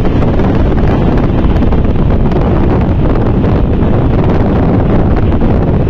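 Steady rush of wind buffeting the microphone at an open train window, over the low rumble of the moving train.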